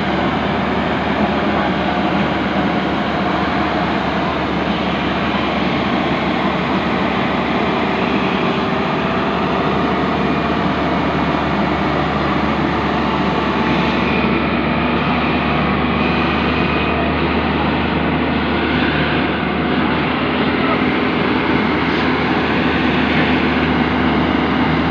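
JCB NXT205 excavator's diesel engine running steadily during loading work.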